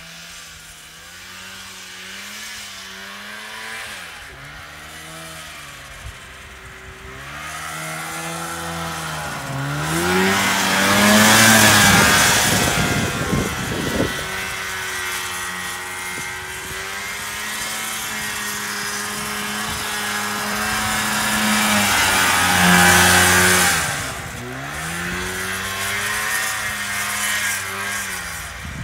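A vintage 1975 John Deere snowmobile's two-stroke engine running across snow, its pitch rising and falling as the throttle is opened and eased off. It grows loud twice as the sled swings close by.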